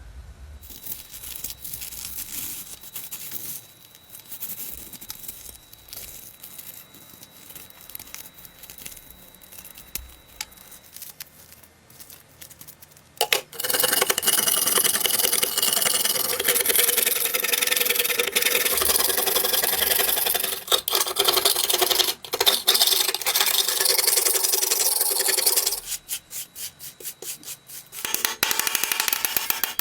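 Rusty knife steel being worked by hand in many short scraping and rubbing strokes. About halfway, a loud power abrasive tool starts grinding the metal, with brief pauses and a stretch of quick short strokes near the end.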